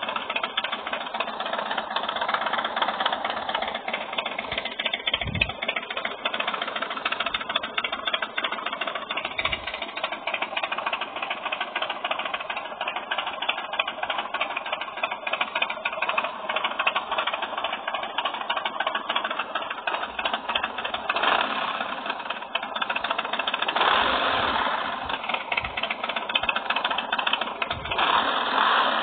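Recorded engine sound of a 2017 Harley-Davidson Dyna Fat Bob's V-twin, played back from a phone app. It runs with a fast, steady pulsing and gets louder for a few seconds at a time in the last third.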